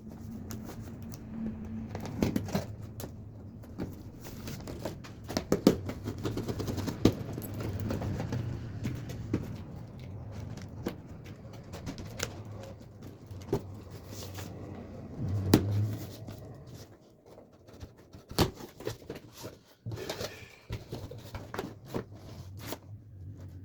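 Handling noise from unboxing: packaging rustling, with many scattered clicks and knocks.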